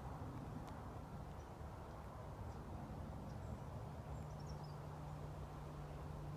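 Outdoor ambience at a pond: a steady low rumble with a low hum joining about four seconds in, and a few faint high bird chirps near the middle.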